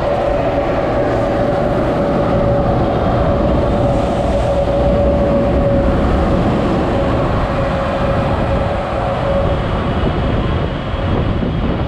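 A moving car's steady road and engine noise, with a steady hum through most of it that stops near the end.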